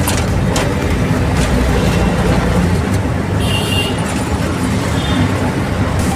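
Auto-rickshaw running through road traffic, with a steady engine rumble and road noise from inside the moving vehicle. A short, high-pitched horn beep sounds about halfway through.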